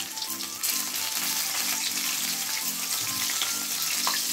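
Chital fish pieces sizzling steadily as they fry in hot mustard oil in an iron wok. About four seconds in, a metal spatula knocks once against the pan.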